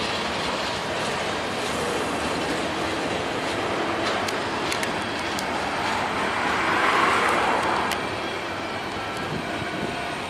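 Train rolling past, steel wheels running on the rails, with a few sharp clicks near the middle and a louder swell about seven seconds in.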